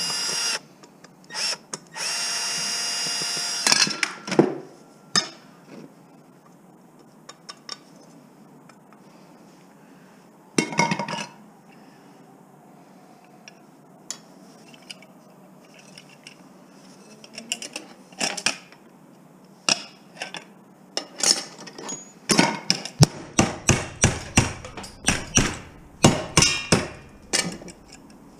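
A power drill runs in two short steady bursts near the start, the second about two seconds long. Then come scattered clicks and clanks of metal scrap being handled, growing busy and rapid near the end.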